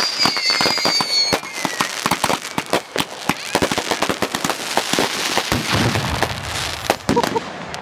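Fireworks going off: a dense run of sharp pops and crackles, with whistling shells gliding down in pitch that fade out about a second and a half in.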